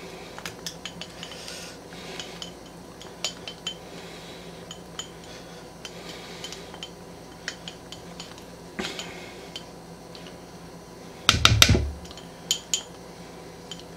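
A spoon scraping barbecue sauce out of a small measuring cup into a plastic mixing bowl, with light clicks and scrapes throughout. About eleven seconds in comes a short burst of louder knocks and taps, then two more clicks.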